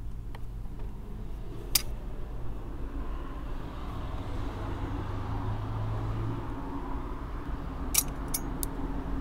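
Sharp metallic clicks from a removed motorcycle front brake caliper and its parts being handled: one click about two seconds in and a quick run of clicks near the end, over a steady low hum.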